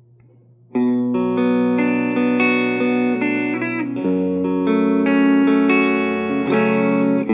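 Electric guitar played through a Positive Grid Spark GO mini amp: after a faint low hum, sustained notes and chords start just under a second in and ring on, changing about once a second.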